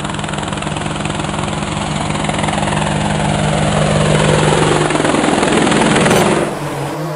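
Quadcopter drone propellers whirring, a steady buzzing hum under a rushing hiss that grows louder, then drops away about six seconds in.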